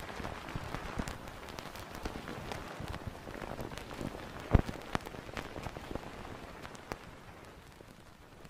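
Vinyl record surface noise: soft crackle with scattered sharp pops and clicks, one louder pop about halfway through, slowly fading out.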